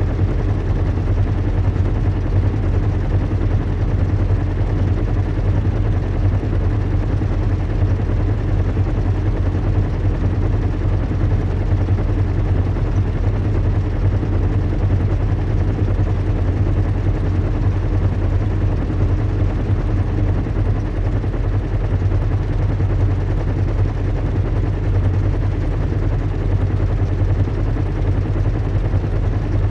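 Recreated airship-in-flight ambience: a steady, unbroken low rumble and hum, like large engines and propellers running at cruise, with an even hiss of air over it.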